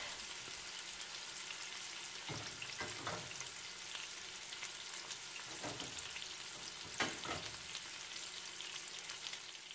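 Seasoned chicken drumsticks and breast pieces sizzling in hot oil in a ceramic-lined pot, browning over medium-high heat: a steady frying hiss with a few brief pops.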